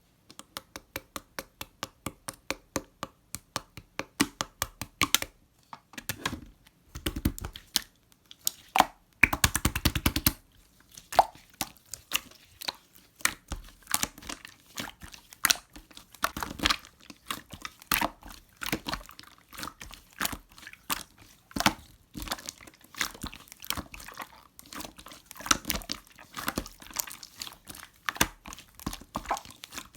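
Slime being squished, pressed and poked by hand, making wet clicky pops and crackles: evenly repeated clicks at first, a fast dense run of pops about nine seconds in, then irregular popping and crackling.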